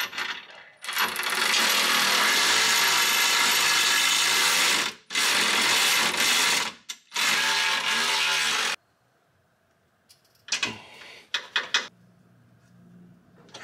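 Cordless electric ratchet running in three bursts, a long one of about four seconds and then two shorter ones, driving in the bolts of an aluminium transfer case skid plate. A few sharp clicks follow near the end.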